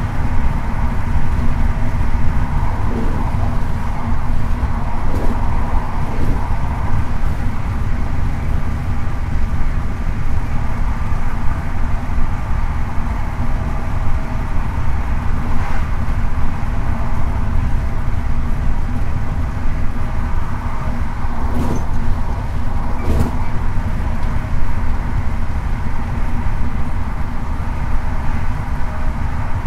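High Speed Train (InterCity 125) running along the line: a steady loud rumble with a droning engine note, and a few sharp clicks from the wheels over rail joints or pointwork.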